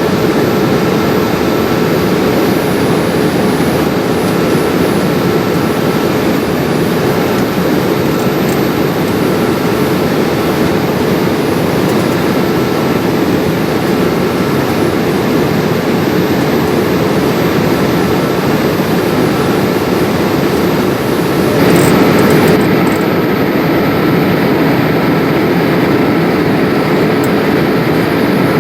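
Boeing 787-8 cabin noise: steady jet engine and airflow noise with a constant low hum and a faint higher whine. About three-quarters of the way in there is a brief, louder rush.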